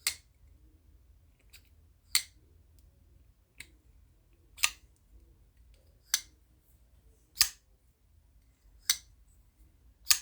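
A new Devo Mash folding knife being thumb-flicked open and shut again and again, its blade snapping into place on the bearing pivot with a sharp click about every second and a half. The detent is still stiff and breaking in.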